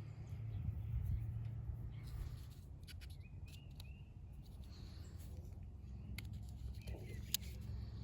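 Birds chirping faintly over a steady low rumble, with a few sharp clicks, the loudest one near the end.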